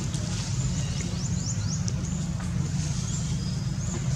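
Steady low rumble with a run of short, high, upward-sweeping chirps, several in quick succession in the first two seconds and a few more spaced out later.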